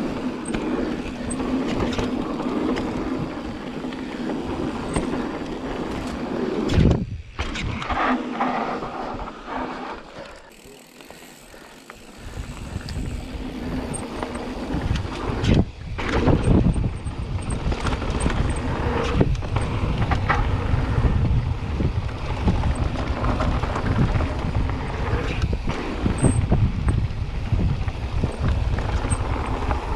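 Mountain bike rolling fast down a dirt singletrack: wind noise on the action camera's microphone over knobby tyres on dirt and the bike rattling over bumps. It eases briefly about ten seconds in, then picks up again, choppier.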